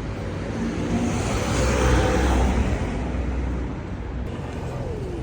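Road traffic noise with a motor vehicle passing: a low rumble and hiss that swells to a peak about two seconds in, then fades.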